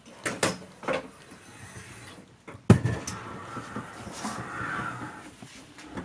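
A few light knocks, then a sharp thump nearly three seconds in, followed by a couple of seconds of rustling and shuffling as camping gear is handled for packing.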